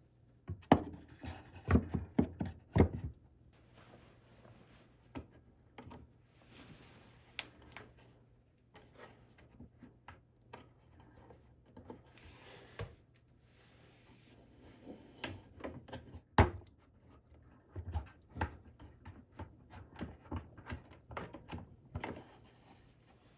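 Irregular workshop handling sounds: knocks and clunks of wood and metal parts being moved and set down on a workbench, with faint rubbing in between. A cluster of loud knocks comes in the first few seconds, and a single sharp knock comes about two-thirds of the way through.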